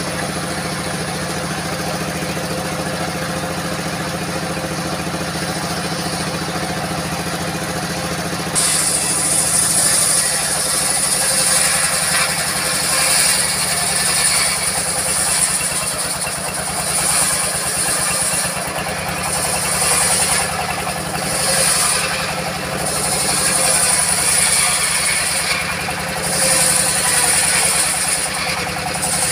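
Old diesel engine driving a circular saw bench, running steadily. About eight seconds in, the blade starts ripping a teak log, adding a loud high-pitched whine that swells and eases again and again as the log is pushed through.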